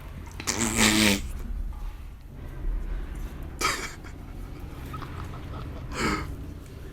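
A person's voice: a loud cry falling in pitch about half a second in, then two short breathy bursts, over a steady low rumble.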